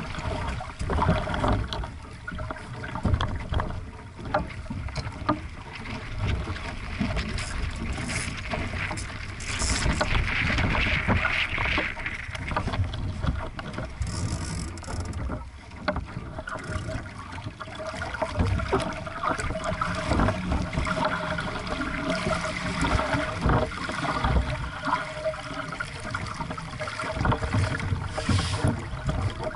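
Water rushing and splashing along the hull of a small aqu@muse sailing dinghy under way, with irregular knocks of chop against the hull and wind buffeting the microphone.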